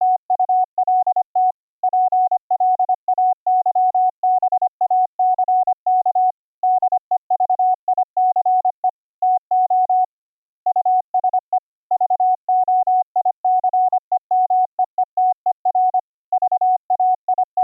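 Computer-generated Morse code (CW) tone from the YPLog CW keyboard program, a single pitch a little above 700 Hz keyed rapidly in dots and dashes, with short pauses between words and a longer pause about ten seconds in. The tone runs through a CW regeneration setup meant to patch over dropped audio buffers so the keying stays fluent.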